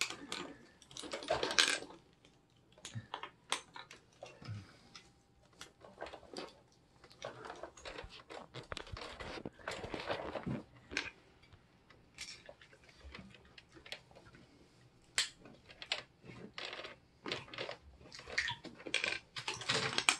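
Plastic Lego bricks clicking and clattering as they are handled, pulled apart and set down on a tabletop, in irregular scattered clicks.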